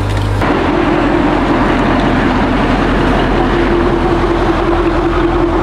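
Car on the move at a steady speed: loud, even road and wind noise with a steady engine drone underneath.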